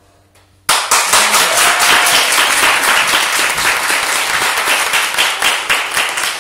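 After a brief hush, a small audience suddenly starts clapping under a second in and keeps up steady applause.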